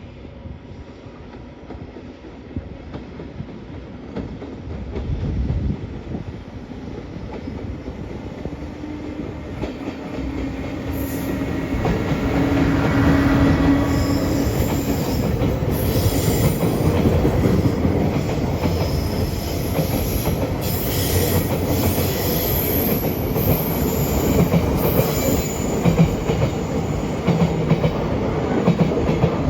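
Electric freight train approaching and passing: the sound builds over the first dozen seconds, then a long string of freight wagons rolls by, with clattering wheels over rail joints and some high wheel squeal.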